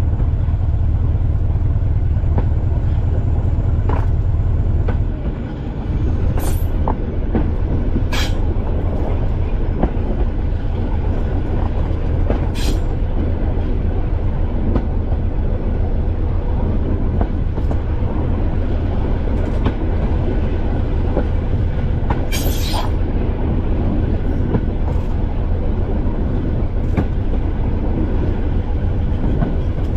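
English Electric four-cylinder diesel engine of the Class 205 'Thumper' diesel-electric multiple unit running under way, a steady low drone heard from the driver's cab. The engine note dips briefly about five seconds in, then picks up again, with a few sharp clacks from the wheels on the track.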